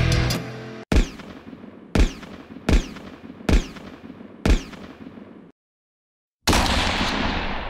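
Rock music cuts out, then five gunshot sound effects ring out about a second apart, each with an echoing tail. After a second of silence comes a louder, longer blast that dies away over about two seconds.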